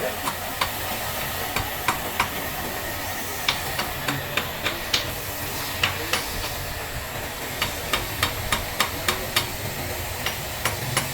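Irregular sharp metallic clicks and taps from hand-tool work on metal, over a steady hiss.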